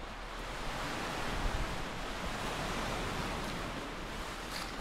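Sea surf washing on the shore, swelling about a second in and easing off toward the end, over a low rumble of wind on the microphone.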